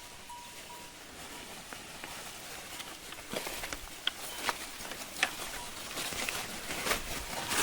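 Footsteps and rustling through dry scrub, irregular crunches and snaps that start about three seconds in and grow busier toward the end.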